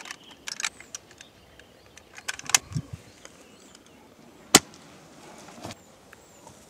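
Sparse sharp clicks and light knocks over a faint outdoor background, with the sharpest single click about four and a half seconds in.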